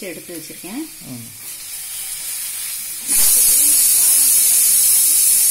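Pressure cooker venting steam: a hiss builds, then about three seconds in it jumps to a loud, steady, high hiss as the pressure releases.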